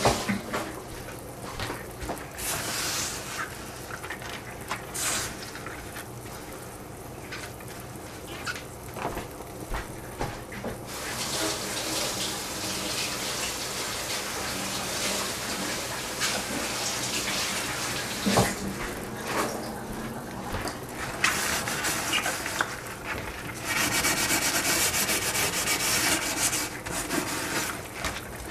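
Kitchen clean-up: water running from a tap and a cloth rubbing and scrubbing, with scattered clicks and knocks. A louder stretch of hiss lasts about three seconds near the end.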